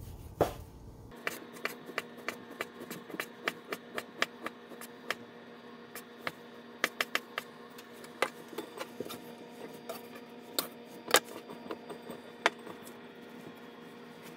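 Chef's knife cutting ham into thin strips on a wooden cutting board: a run of uneven, sharp knocks as the blade strikes the board, a few a second.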